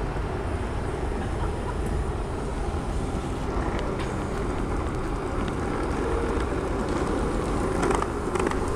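Skateboard wheels rolling on street pavement as a dog tows it on a leash, a steady grinding rumble that grows a little louder near the end.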